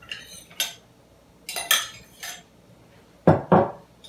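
Metal spoon clinking and scraping against a glass measuring cup and a stainless steel saucepan as vegetables are spooned into the pot. Two louder knocks come just after three seconds in.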